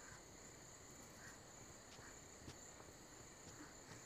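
Faint, steady chirring of crickets: night-time insect ambience.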